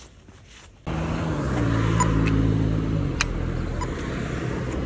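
Motor vehicle engine running close by at the roadside: a steady low hum over road noise that starts abruptly about a second in, its pitch easing down slightly past the middle, with a few light ticks.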